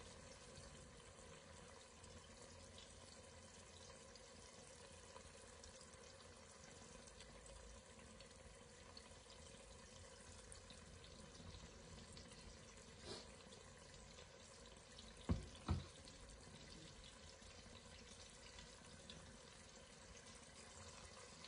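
Very faint, steady simmering of sauce in a pot on a gas burner, close to silence. There is a small click a little past halfway, then two quick knocks about three-quarters of the way through.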